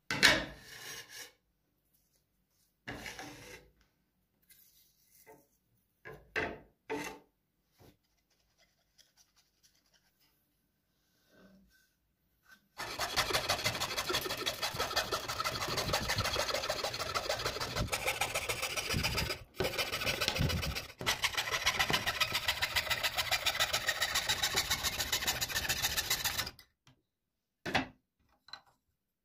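Scroll saw cutting a wooden board: about fourteen seconds of a fast, even chatter from the reciprocating blade as it works through the wood. Before it, a board is set down on the table with a sharp knock, followed by a few short handling sounds.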